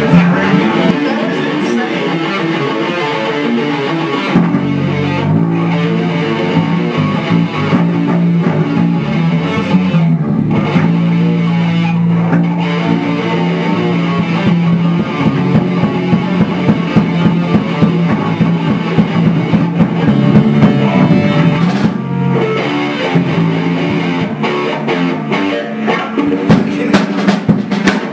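Rock band playing: an electric guitar close by, with a drum kit behind it, loud and continuous.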